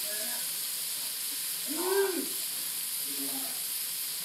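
Onions, jalapeños and citrus wedges sizzling in an enameled cast-iron Dutch oven, a steady hiss with faint crackles. About two seconds in, a short hum-like sound rises and falls in pitch over the sizzle.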